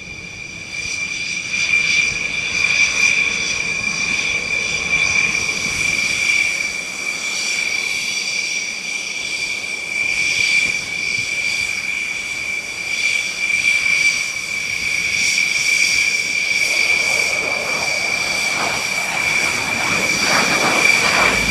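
Dassault Rafale fighter's twin Snecma M88 turbofan engines running at ground idle: a steady, high-pitched turbine whine over a rushing jet noise.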